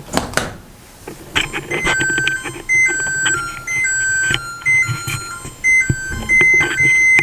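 Electronic beeper melody from an LG range: pure, steady tones stepping between a few notes, starting about a second and a half in, with some light clicks early on.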